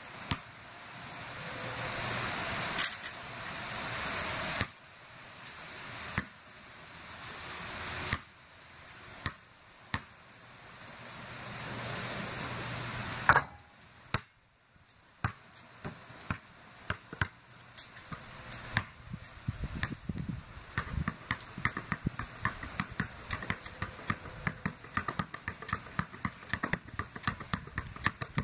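A basketball dribbled fast and low on a concrete driveway: a run of quick, sharp bounces, several a second, from about halfway through. Before that, a swelling hiss broken by single sharp knocks every second or two.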